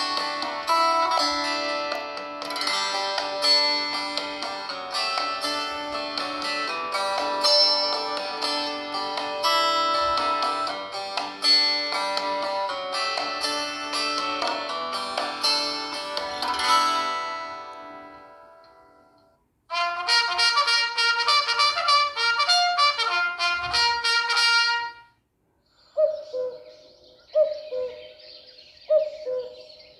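Honor 9 Lite smartphone ringtones playing one after another. A plucked-sounding melodic tune fades out about two-thirds of the way through. After a short gap a faster tune of quick chiming notes plays for about five seconds. Near the end comes a sparser tone, sounded three times over a soft hiss.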